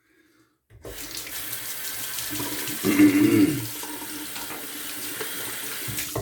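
Bathroom sink tap running after being turned on about a second in. Its water splashes as the face is rinsed with cold water after a shave, louder for a moment about three seconds in, and it cuts off near the end.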